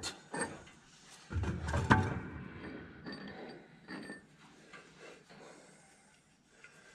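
Handling noise of metal parts: scattered knocks and clinks, with a louder clatter and a sharp click about a second and a half in, then fainter knocks.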